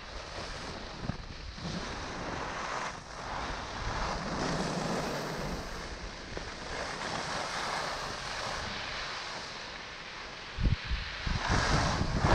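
Wind rushing over the microphone of a camera moving downhill, mixed with the steady hiss of skis sliding over groomed snow. The buffeting turns heavier, with low thumps, about ten and a half seconds in.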